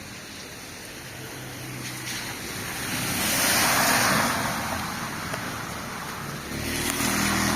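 A car driving through floodwater: a loud hiss of spraying water swells as it passes about four seconds in and fades, then another vehicle comes up near the end with its engine hum under the splash.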